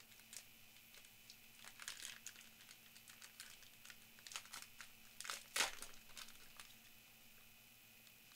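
A foil trading-card pack wrapper crinkling and crackling in irregular spurts as it is peeled open. The loudest crackle comes a little past halfway, and it dies away for the last couple of seconds.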